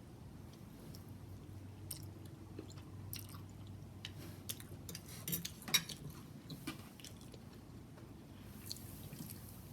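A person chewing food close to the microphone: soft wet mouth clicks and smacks, with a few louder ones a little past the middle.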